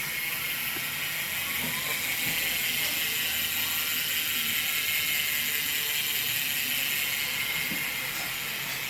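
Fulcrum Racing Quattro rear hub freewheeling as the wheel spins: the freehub pawls clicking so fast they blend into a steady high-pitched buzz, easing off slightly near the end.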